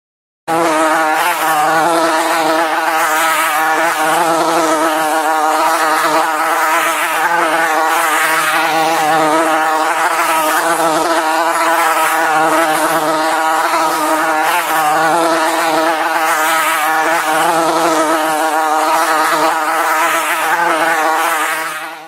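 A loud, steady buzzing drone with a slight waver in pitch, starting abruptly about half a second in and cutting off at the end.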